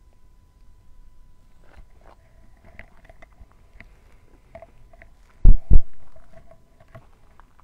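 Two loud, low thuds in quick succession, about a quarter second apart, about five and a half seconds in, over otherwise faint background sounds.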